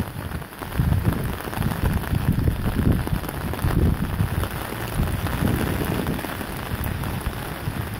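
Steady rain falling on an umbrella held just overhead and on the flat roof around it.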